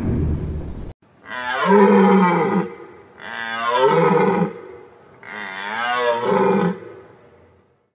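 A deer stag roaring three times, each call a long, pitched bellow of about a second and a half with short pauses between. Before the first roar, a steady noise cuts off suddenly about a second in.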